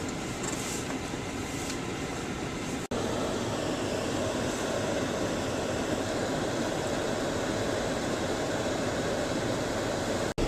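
Steady running noise of a Jeep 4x4 being driven through snow, heard from inside the cabin. It cuts out for an instant about three seconds in and again just before the end.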